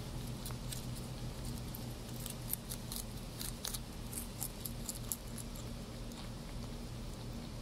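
English Lop rabbit chewing lettuce: quick, crisp crunching clicks at an irregular pace, several a second, stopping about five seconds in. A low steady hum runs underneath.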